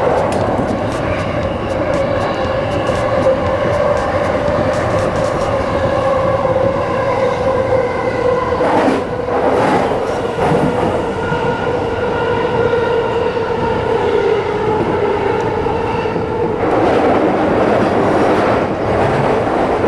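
Chuo Line electric commuter train running, heard from inside the driver's cab: a whine of several tones that slowly falls in pitch, over the rumble of wheels on rail. There are a couple of clacks about halfway through, and the whine changes about three-quarters of the way in.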